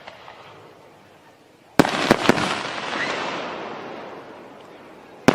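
Fireworks going off: a sharp bang about two seconds in, with two quick cracks right after it, then a long fading tail. Another bang comes right at the end.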